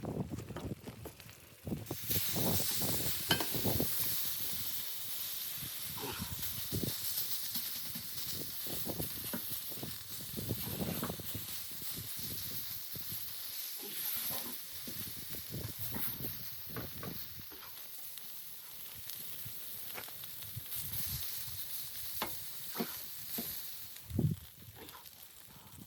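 A steady high hiss that starts suddenly about two seconds in, with scattered clicks and knocks through it.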